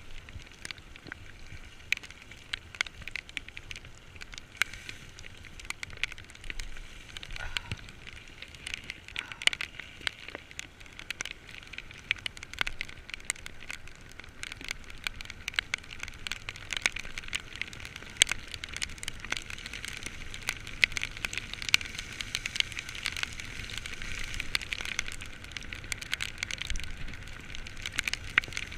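Heavy rain: a dense, irregular crackle of drops striking close to the microphone over a steady hiss, growing a little busier toward the end.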